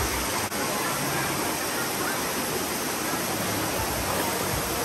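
Steady rush of flowing water, like a stream or small cascade, with a brief drop-out about half a second in.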